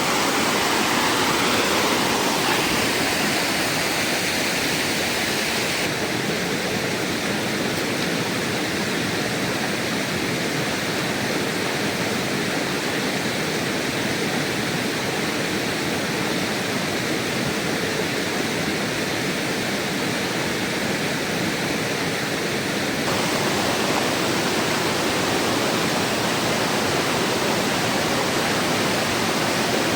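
Rocky river rushing over stones in a steady, loud roar of water. The sound shifts abruptly twice, about six seconds in and again near the middle of the second half.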